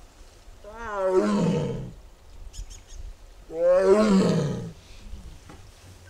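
An Amur (Siberian) tiger calling twice: two long roars about three seconds apart, each rising and then falling in pitch.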